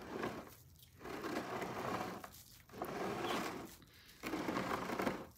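A bonsai pot is being turned on its stand in a series of short pushes. Each push makes a grating scrape about a second long, with brief pauses between.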